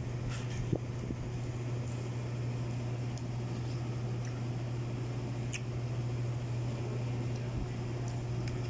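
Steady low drone of a floor-standing air-conditioning unit, with a few faint clicks of a spoon against a bowl.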